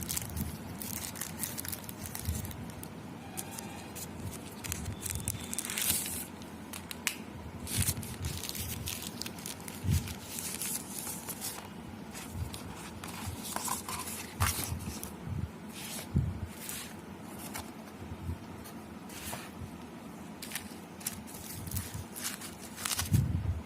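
Plastic wrap and packaging being handled by hand: irregular rustling and crinkling with scattered clicks and taps.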